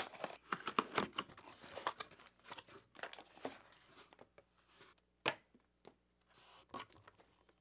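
Scissors cutting through packing tape on a cardboard box, a dense run of crackling snips and scrapes, then the cardboard flaps opening and small cardboard product boxes being set down on a hard tabletop as a few scattered taps and rustles.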